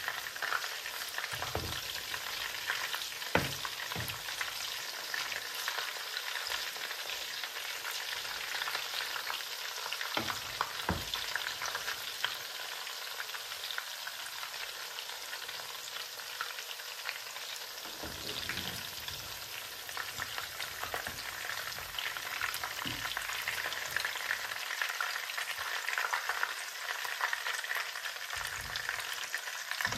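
Batter-coated chicken pieces frying in hot sunflower oil in a pan, a steady crackling sizzle. A metal slotted spoon knocks and scrapes against the pan a few times as the pieces are turned and lifted out.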